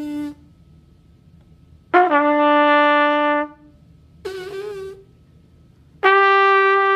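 Trumpet playing two held notes, a lower one then a higher one, each about a second and a half long, with a shorter, weaker, wavering note between them. These are a teacher's beginner demonstration of tightening the embouchure to reach the upper note.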